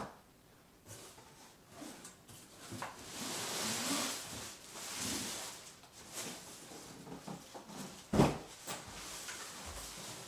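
Cardboard packaging and plastic wrapping rustling and scraping as an upright vacuum cleaner is worked out of its shipping box, with one sharp knock about eight seconds in.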